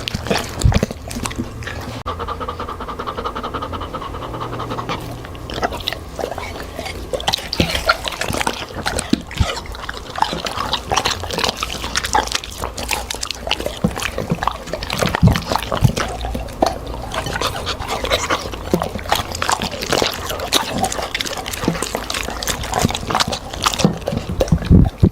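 A dog eating: continuous, irregular wet chewing and mouth smacks, with breaths in between.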